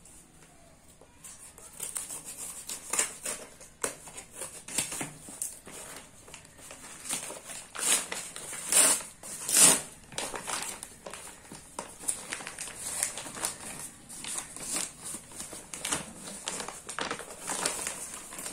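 Scissors cutting into a brown paper mailer, then the thick paper crinkling and rustling as the package is handled, in irregular bursts with the loudest rustles about nine and ten seconds in.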